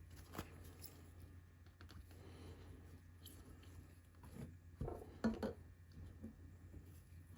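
Light clicks and knocks of small objects being handled, with a sharp click just under half a second in and a cluster of louder knocks about five seconds in, over a steady low hum.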